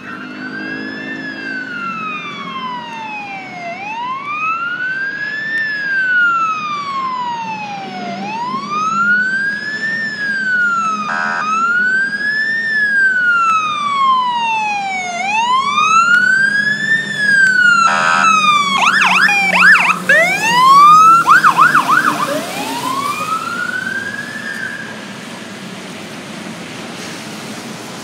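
Fire apparatus siren on a slow wail, rising and falling about every four and a half seconds, with a short air-horn blast twice. About two-thirds of the way in it switches to fast yelping sweeps, the loudest part, then makes one last rise and fades, leaving wet-road and rain noise.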